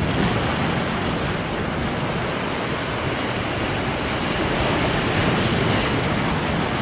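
Sea surf breaking and washing over rocks close by, a steady rushing with no distinct single wave crashes.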